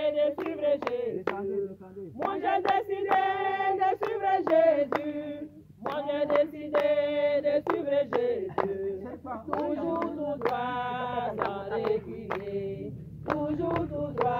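A small group singing a worship song without instruments, in phrases of a few seconds with short breaks, with steady hand clapping on the beat.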